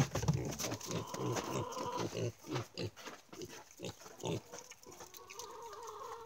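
Kunekune pigs grunting and chomping as they eat from feed bowls: a quick, uneven run of short low grunts and chewing sounds.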